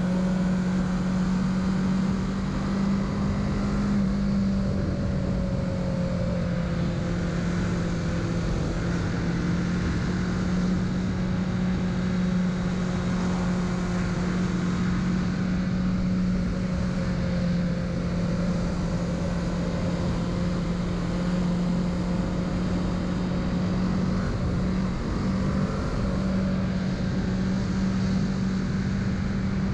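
Kawasaki Z650's parallel-twin engine running under way at a nearly steady pitch, with wind noise around it.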